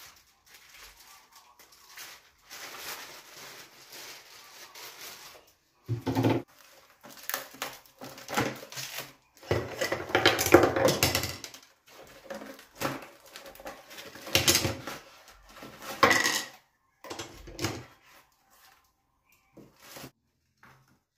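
Plastic courier mailer bag rustling and crinkling in irregular bursts as it is handled and emptied, with a few dull bumps among the louder bursts.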